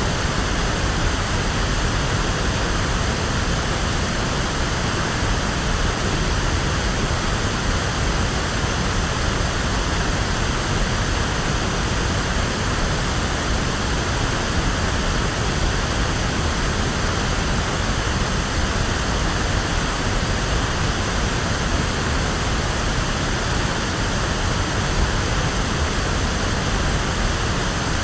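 Steady, unbroken pink noise: an electronically generated hiss with more weight in the low end than white noise, like a rushing waterfall or sea.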